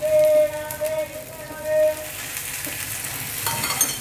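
Oil sizzling and crackling on a hot iron tawa as it is drizzled around a sabudana thalipeeth, with a louder spell of crackling near the end. For about the first two seconds a steady held tone of unclear source sounds over the sizzle.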